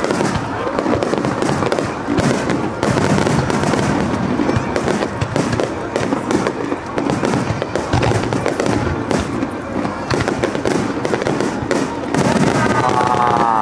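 A continuous barrage of aerial firework shells bursting in quick succession, their booms and crackle overlapping with no break.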